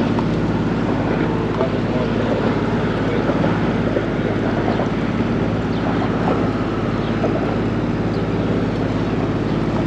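Catalina 34 Mark II sailboat motoring under its inboard diesel engine: a steady, even engine drone, with wind buffeting the microphone.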